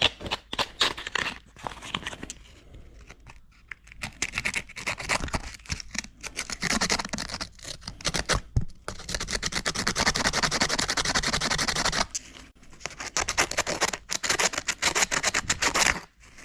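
Sandpaper rubbing back and forth on a rusted spark plug in quick scratching strokes, scraping the rust off to clean it. The strokes start sparse, run steadily from about four seconds in, pause briefly about twelve seconds in, then resume.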